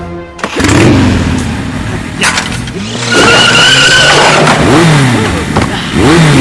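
Quad bike engine revving up and down as it spins around. There is a sharp hit about two seconds in, and a high squeal lasting over a second from about three seconds in.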